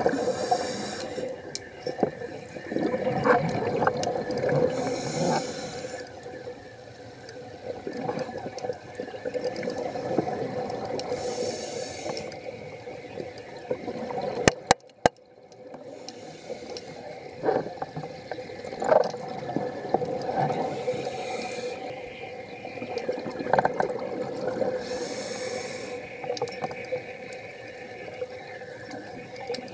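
Scuba diver breathing through a regulator underwater, with bursts of exhaled bubbles gurgling out every few seconds over a steady hum. A couple of sharp clicks about halfway through.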